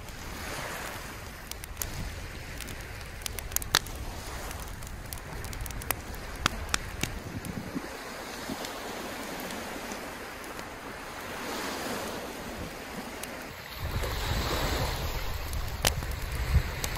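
Sea waves washing up on a sandy shore in a surging hiss, with scattered sharp clicks over it. Wind buffets the microphone with a heavier low rumble near the end.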